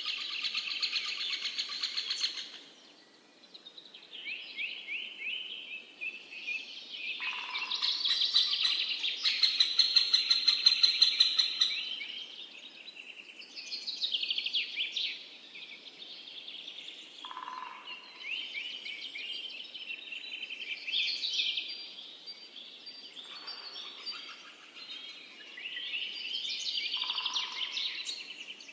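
Several songbirds singing and chirping over one another in a dense chorus of quick repeated notes and trills, loudest in the middle, with a few short lower notes now and then.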